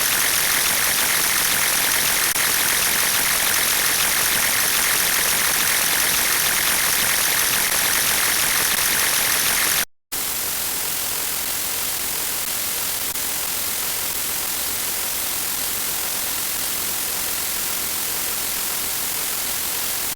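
Steady static-like hiss of noise for about ten seconds, a brief dropout, then a second, slightly duller stretch of steady hiss that cuts off suddenly at the end.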